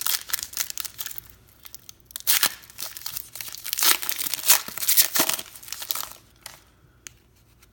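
Trading card pack wrapper being torn open and crinkled by hand, a run of crackling rustles that dies down about six seconds in.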